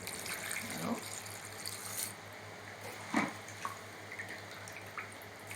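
Water running and pouring steadily, with a few faint knocks: salt brine going into the jars of turnip and carrot pickles.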